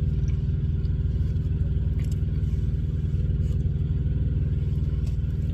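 Semi truck's diesel engine running steadily at cruising speed, a dense low rumble with an even rapid pulse.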